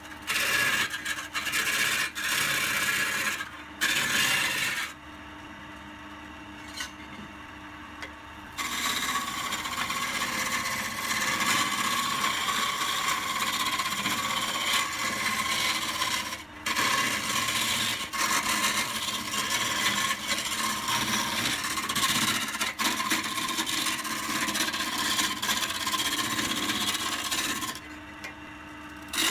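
Wood lathe running while a turning tool cuts and scrapes the spinning wood, a dense rasping with a steady hum. The cutting stops briefly about five seconds in, picks up again after about three seconds, and stops again near the end.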